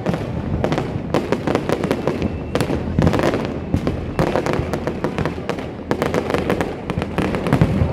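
Aerial fireworks display in full barrage: a dense, unbroken run of rapid, overlapping bangs and crackles from shells bursting one after another.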